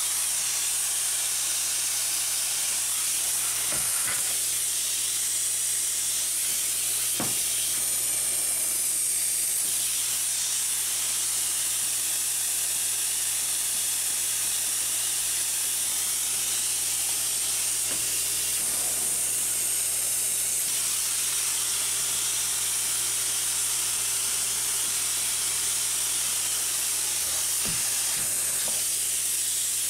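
Spray foam insulation gun hissing steadily as it sprays polyurethane foam into a stud wall cavity, with a few faint knocks.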